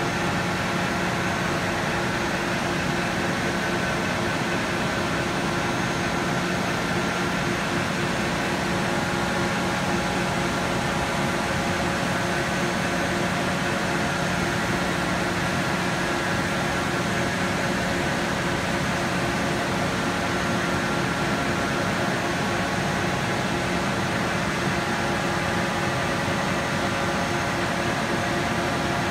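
Steady machine-shop hum: an even mechanical drone with several constant tones over a hiss, holding unchanged throughout.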